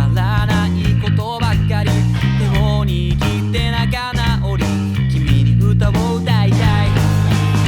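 Rock band music with an electric bass guitar playing along, its sustained low notes changing every half second or so. Above the bass, a melody line wavers and bends in pitch.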